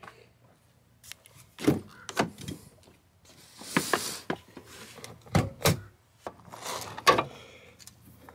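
A GMC Sierra pickup's door and hood being opened: a series of sharp latch clicks and clunks, with a short rush of noise about four seconds in.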